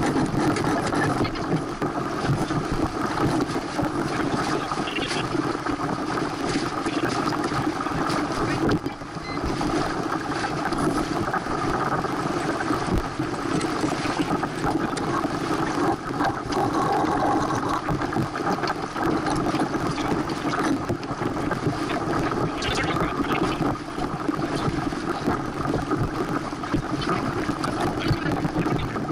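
Steady rush of wind on the microphone and water along the hull of a Santana 525 sailboat under sail.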